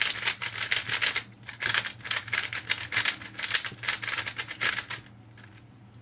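A magnetized GAN Air SM 3x3 speedcube being turned fast by hand, a rapid run of crisp plastic clicks and clacks that stops about five seconds in.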